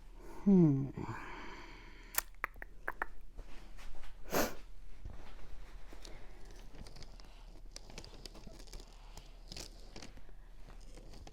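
A person's short, falling vocal sound, like a murmured 'hmm', then scattered small clicks and handling noises, with a brief rush of noise about four seconds in.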